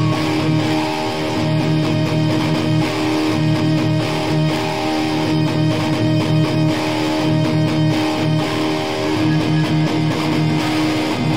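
Hardcore band recording: electric guitars and bass playing a riff over a steady beat.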